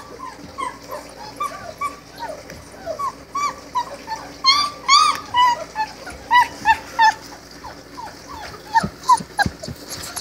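Four-week-old Great Dane puppies whimpering and squeaking: a run of short, high, rising-and-falling cries, a few every second, loudest about halfway through.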